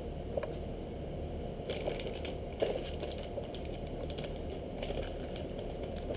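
Plastic tackle packaging crinkling, with light clicks as it is handled, over a steady low hum.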